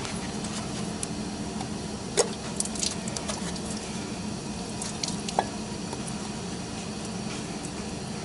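Scattered small clicks and knocks of metal as a Ford Taurus water pump is worked loose by hand from the engine block, the sharpest click about two seconds in, over a steady low hum.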